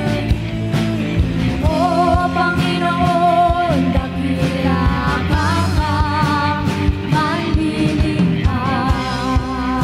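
Worship band playing: drums keeping a steady beat under bass and a wavering melody line with vibrato, in phrases a few seconds long.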